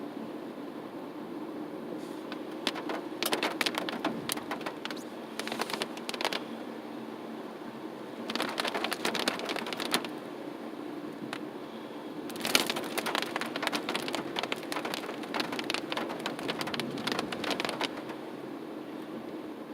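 Meltwater and ice drops falling from iced-over trees patter on a moving car's roof and windshield in several bursts of many quick taps, over the car's steady running hum.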